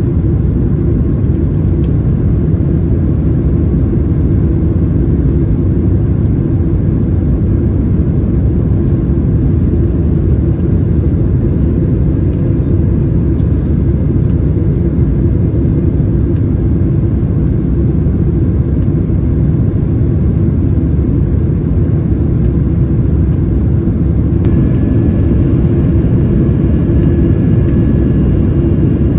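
Steady low rumble of engine and airflow noise heard inside the cabin of a Boeing 767-300ER, with a faint high whine joining near the end.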